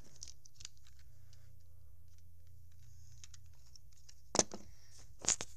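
Plastic Lego pieces being handled and fitted, faint rustling with small clicks, then two sharp clicks a little less than a second apart near the end.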